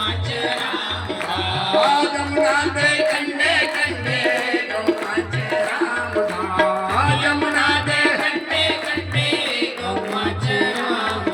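Instrumental passage of a Hindi–Punjabi devotional bhajan: tabla keeps a steady rhythm under an ornamented melody line.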